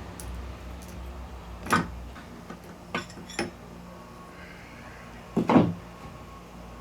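Loose metal parts of a Ford M5OD-R2 manual transmission being handled during teardown, clinking and knocking against each other and the table: a few sharp knocks, the loudest a quick double knock near the end.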